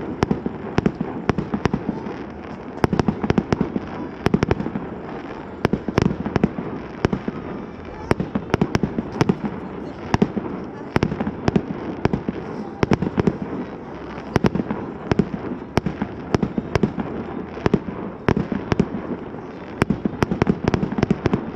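Fireworks going off in rapid, irregular succession: a dense run of sharp bangs, several a second, without a break.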